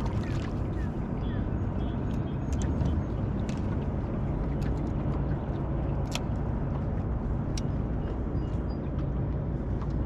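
Boat motor running steadily, a low drone, with scattered light clicks and taps over it.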